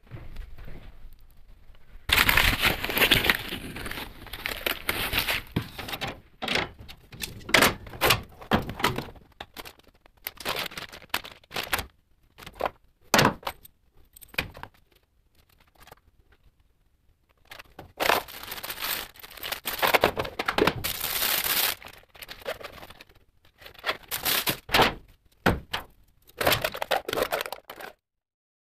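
Hands rummaging through plastic-bagged accessory parts: crinkling plastic and small parts clicking and knocking together, in irregular bursts with short pauses.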